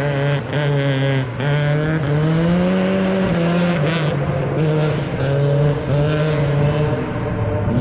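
Peugeot 306 rally car's four-cylinder engine revving hard, its note dipping and climbing again several times, rising highest about three seconds in and dropping lower near the end.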